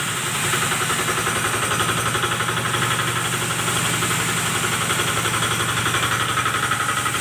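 FFC-45 iron disk grain mill running under power, a steady mechanical drone with a rapid, even pulsing.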